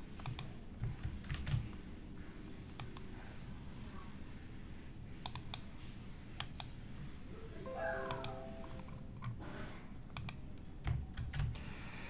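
Sparse clicks and taps of a computer keyboard, irregularly spaced, with a few soft low knocks on the desk.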